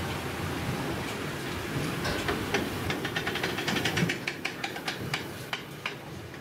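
Intermodal freight train wagons rolling past: a steady rumble and hiss of wheels on the rails, with a quick run of clicking wheels on the track through the second half.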